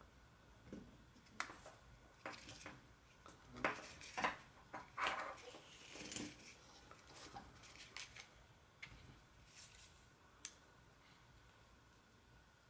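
Quiet handling of a braided latex rubber clothesline in the fingers: scattered soft rubs and rustles with small clicks, busiest in the middle.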